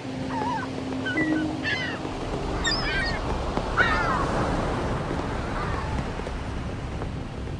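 A handful of short bird cries, each falling in pitch, over a steady wash of noise like surf.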